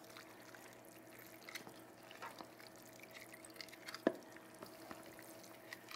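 Faint wet squelching of fusilli being stirred into a thick ricotta cheese sauce with a wooden paddle in a stainless steel bowl, with one light knock of the paddle against the bowl about four seconds in.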